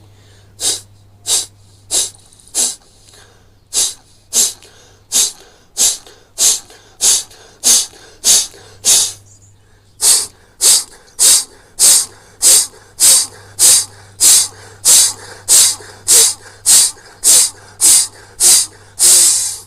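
Loud, forceful exhalations through both nostrils: a sharp hissing puff about every two-thirds of a second, with one short pause midway. They clear the nose after jal neti nasal rinsing.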